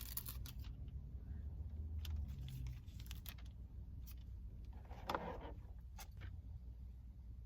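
Low, steady rumble of a car, heard in its cabin, with a few scattered clicks and a short handling noise about five seconds in.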